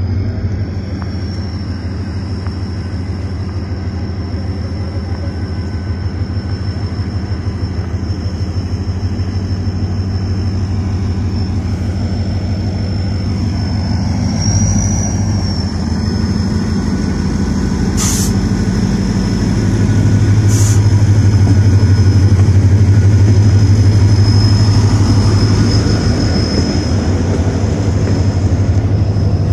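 Pakistan Railways HGMU-30 diesel-electric locomotive pulling a passenger train away from a standstill and past at close range, its engine running with a low throb and a steady high whine, growing louder in the second half. Two sharp clicks come about two-thirds of the way through, and the coaches roll past near the end.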